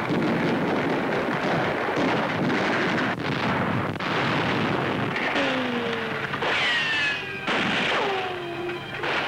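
Battle sound effects of gunfire and explosions laid over the film as a dense, continuous din. From about five seconds in, several falling whistling tones sound one after another over it.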